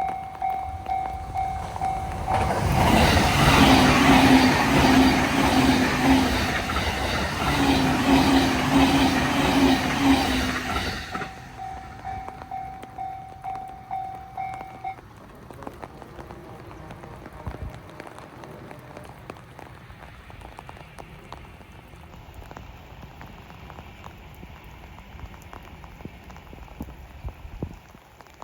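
Japanese level-crossing warning bell clanging in a steady repeating pattern while a train passes loudly from about three to eleven seconds in. The bell stops about fifteen seconds in, leaving only a low, even background noise.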